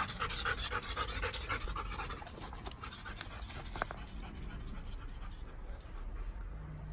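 A search dog panting quickly, about three or four breaths a second, fading out after about two and a half seconds.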